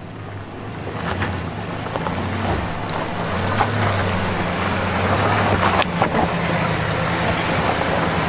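GMC Yukon AT4 crawling slowly over rock and loose dirt in four-low: a steady low engine hum, tyres crackling over gravel, and wind on the microphone. The sound grows louder over the first few seconds as the SUV nears.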